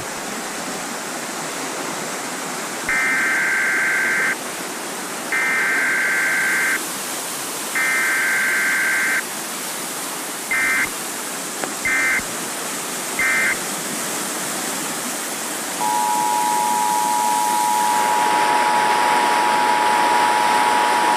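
Swollen flash-flooded creek rushing steadily, growing louder near the end. Over it, Emergency Alert System tones: three long bursts of warbling data tones, then three short ones, then the steady two-tone attention signal starts about three quarters of the way through.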